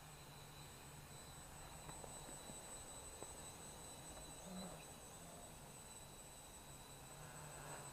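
Near silence: a faint steady low hum with a thin, steady high-pitched tone above it.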